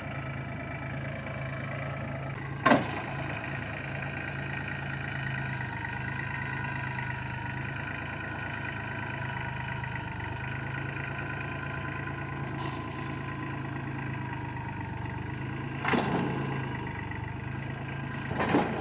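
An engine running steadily at low revs, a constant low hum. A sharp knock comes about three seconds in, and two more near the end.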